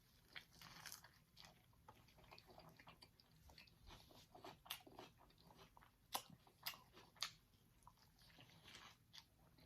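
A person chewing a mouthful of food, faint, with scattered short wet mouth clicks and smacks; a few louder ones come in the middle.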